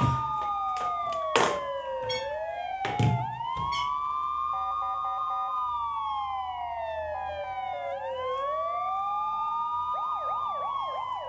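Police siren wailing, its pitch rising and falling slowly about every three to four seconds, then switching to a fast yelp near the end. A few sharp knocks come in the first four seconds, the loudest a little over a second in.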